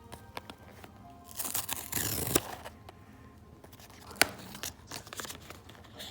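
Blind-box packaging being torn and handled open: a noisy rip lasting about a second, scattered small rustles and clicks, and a single sharp click about four seconds in.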